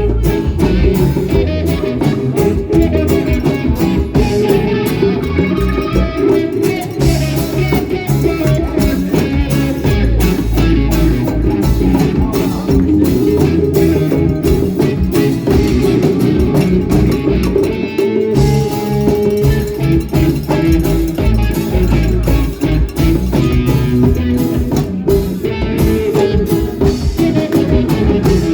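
Live rock band playing, with guitar over bass and a drum kit.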